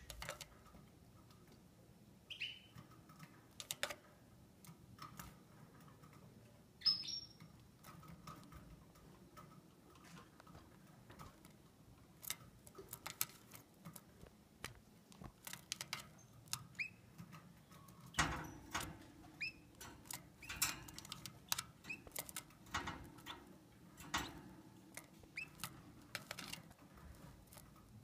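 Female Gloster canary giving occasional short, single chirps, spread out and irregular, amid scattered light taps and rustles.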